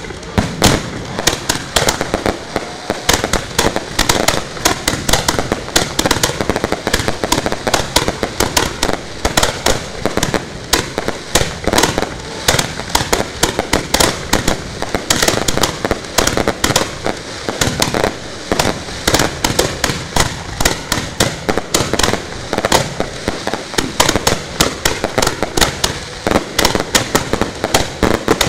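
Fireworks going off from ground racks at close range: a dense, unbroken barrage of sharp bangs and crackle, several a second.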